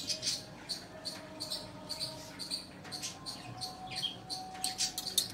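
Large taro leaves crinkling as hands fold them around a layer of ground chana dal paste. Over it runs a steady row of short, high chirps, about three a second.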